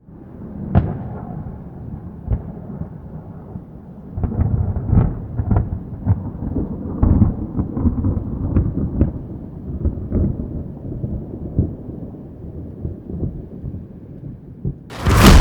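Thunderstorm: a long roll of thunder rumbling and crackling, ending in a loud, sharp thunderclap near the end.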